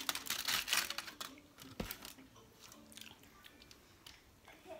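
Close-miked eating sounds: chewing and biting into food, with a dense crackling burst in the first second and scattered small clicks and smacks after.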